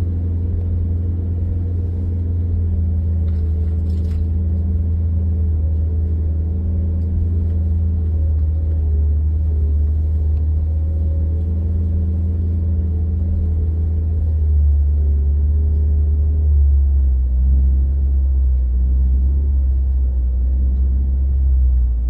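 Car engine and tyre noise heard from inside the cabin while driving on a snow-covered road: a steady low drone that drops a little in pitch about fifteen seconds in.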